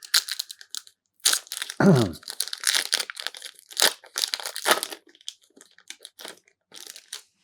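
Trading-card booster pack wrapper being torn open and crinkled: a run of sharp crackling tears and crumples, thinning out after about five seconds. A short falling tone sounds about two seconds in.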